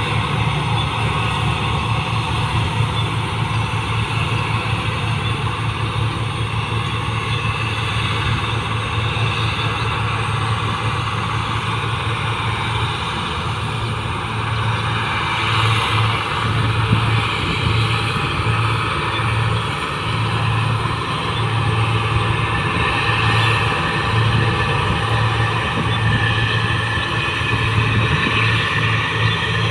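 New Holland 1545 combine harvester running steadily as it harvests rice: a low diesel engine drone with the rumble of its threshing machinery, swelling slightly a few times.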